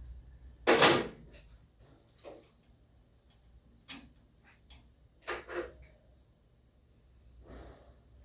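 Hard objects being handled and set down: one loud clatter about a second in, then a scatter of lighter clicks and knocks.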